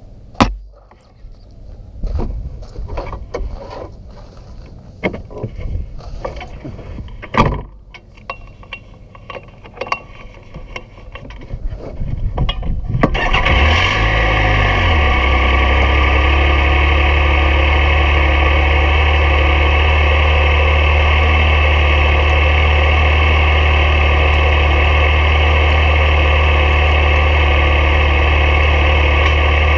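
Knocks and clunks of handling around a Yamaha YXZ1000R side-by-side, then its three-cylinder engine starts about halfway through. After a brief rise and fall in pitch as it catches, it settles into a steady idle.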